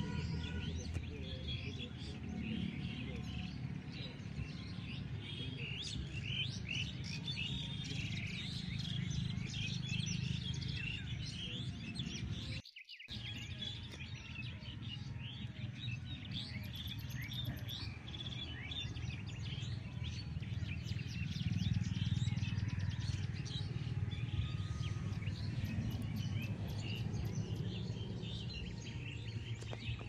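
Dense chorus of many small birds chirping and twittering at once, with a steady low rumble of background noise underneath; the sound cuts out for a moment near the middle.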